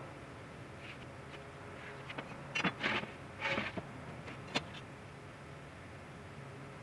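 Short scraping strokes and a few sharp clicks of a pencil and metal ruler working on an MDF board, bunched in the middle, over a steady low hum.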